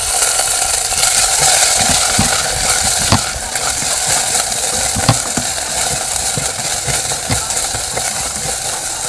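Diced onion frying in hot oil with browned garlic in a nonstick pot, sizzling loudly and easing a little after the first few seconds. A silicone spatula stirs and scrapes the pot, with scattered light knocks.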